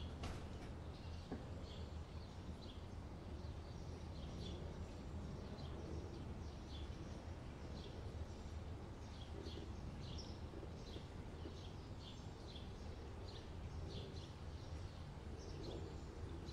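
Faint outdoor ambience: small birds chirping in short, scattered calls over a steady low hum.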